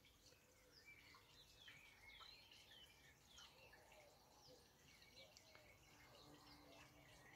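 Faint birdsong: small birds chirping with many short, quick calls, over a low background hum of outdoor noise.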